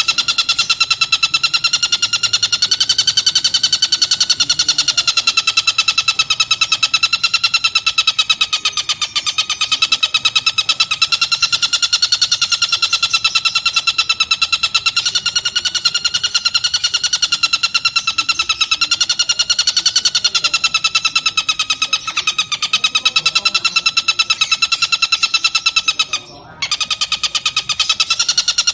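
Tengkek buto bird calling in one long, unbroken, very rapid rattling trill, its pitch wavering slightly, with a brief break about 26 seconds in.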